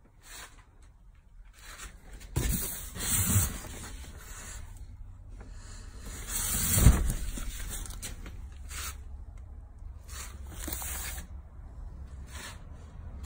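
Rubbing and scuffing noises, louder for about a second from two and a half seconds in, with a sharp thump near seven seconds, over a low steady rumble.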